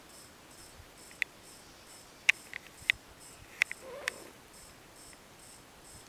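Two cats play-fighting on carpet: a handful of sharp clicks and taps, bunched from about one to four seconds in, over a faint, fast, even ticking in a quiet room.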